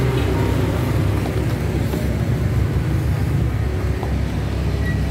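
A steady low rumble, like a motor vehicle engine running.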